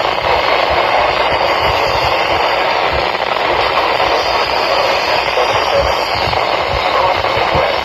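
Steady hiss of radio static from a weak or untuned broadcast signal, with irregular low crackles underneath.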